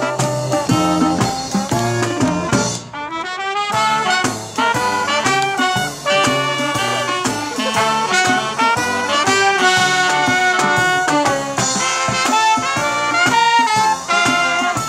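Live brass band playing an upbeat, swinging tune, with a brief break and a rising run of notes about three seconds in.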